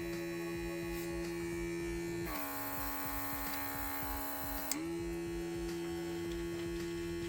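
Worx MakerX airbrush's small compressor running with a steady electric hum. About two seconds in, air hisses out of the nozzle for roughly two and a half seconds, and the motor's hum drops in pitch under the load, then climbs back when the air stops.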